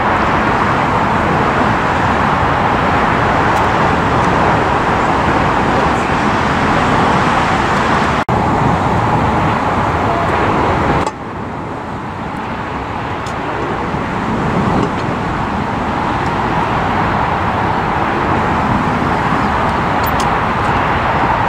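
Boeing 747 jet engines, a loud, steady rush as the four-engined jet moves along the runway. About 11 seconds in it cuts to a quieter, steady jet rush that slowly grows louder.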